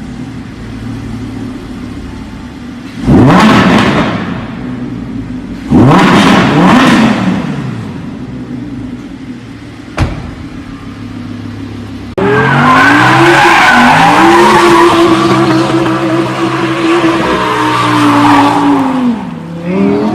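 Performance car engines: two short loud bursts of revving about three and six seconds in, then from about twelve seconds a long run at high revs with tyres squealing, as in a powerslide or drift.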